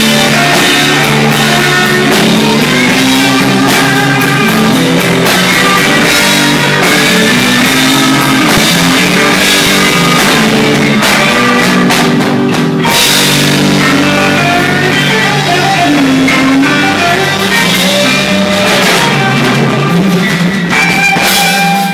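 Live slow blues played loud by a rock band: electric guitar with bending notes over drum kit and bass, with no singing.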